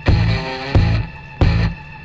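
Rock music with guitar over a heavy, regular beat, three strong hits in two seconds.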